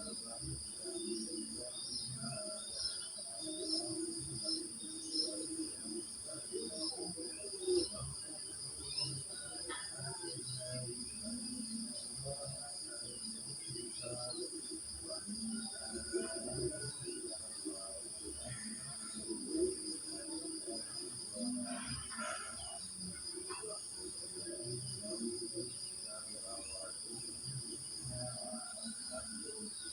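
Crickets trilling in a steady chorus at two high pitches, with scattered short bird chirps over it.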